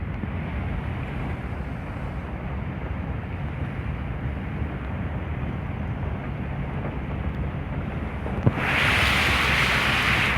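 Heavy rain with wind on the microphone, a steady rushing hiss. Near the end a louder, brighter hiss comes in.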